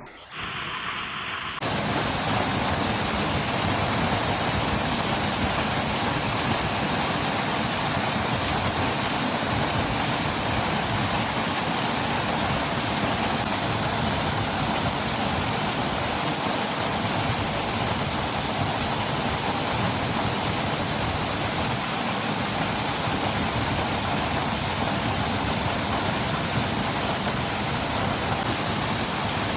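Waterfall: a steady, dense rushing of falling water, cutting in suddenly at the start.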